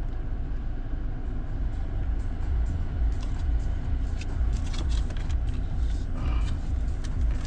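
Steady low rumble inside the cabin of a parked car, with a few light clicks scattered through the middle.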